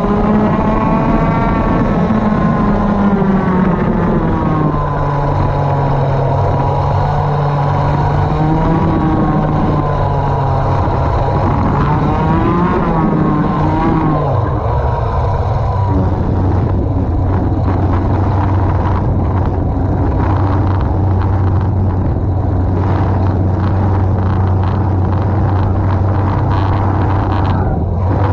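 Racing kart engine running hard, its pitch climbing and dropping with throttle over the first half, then holding a steady, lower note for the rest.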